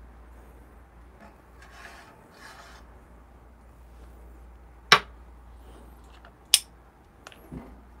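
A small glass espresso cup handled and set down: two sharp clinks, the second about a second and a half after the first, with a few faint knocks near the end.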